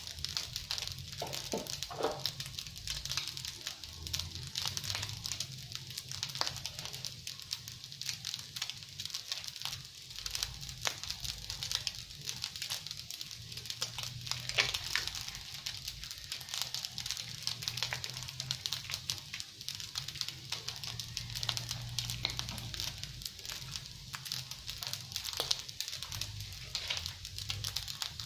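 Fried rice sizzling in a hot frying pan, a continuous fine crackle with many small pops, over a steady low hum.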